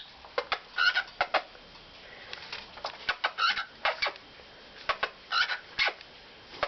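Pet birds chirping and squawking in short, sharp, high calls, coming in bursts with brief pauses between.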